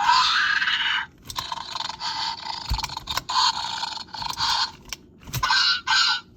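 Electronic baby velociraptor toy's small speaker playing raspy raptor screeches and growls, in several bursts of about a second each, with short clicks between them.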